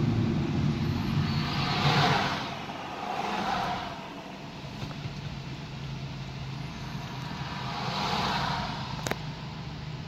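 Car road and engine noise heard from inside the cabin as the car slows behind another vehicle, the rumble dropping away after about two seconds. Two swells of hiss come about two seconds in and near the end, and a single sharp click sounds shortly before the end.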